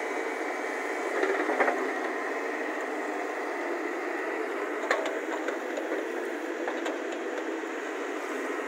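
JCB JS140 tracked excavator's diesel engine running steadily under load as it digs and lifts a bucket of soil. A few short knocks come about a second and a half in and around five seconds.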